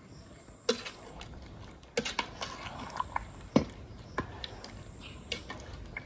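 Slotted metal spoon stirring sliced peaches in a large enamel bowl: irregular clinks and knocks of metal against the enamel, the loudest about halfway through.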